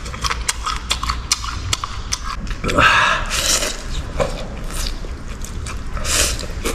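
Close-up eating sounds: a mouthful of braised noodles and raw garlic being bitten and chewed, with many short crisp clicks and crunches. Two longer rushing noises come about three and six seconds in.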